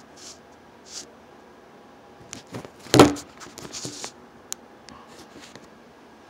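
Handling noise of a phone held close to its microphone: scattered rustles and taps, with one louder knock about three seconds in.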